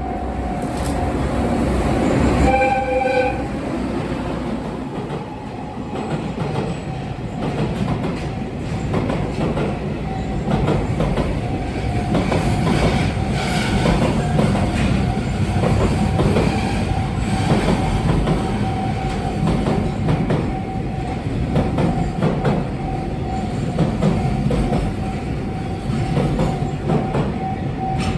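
Push-pull freight train running past, its wheels clattering over rail joints, with a steady high-pitched whine throughout. A short horn note sounds about two and a half seconds in.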